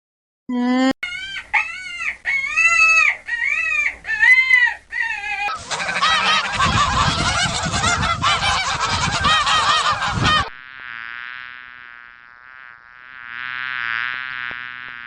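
Waterfowl honking: about five separate rising-and-falling honks, then many birds calling over one another for about five seconds. A quieter buzzing drone follows for the last few seconds.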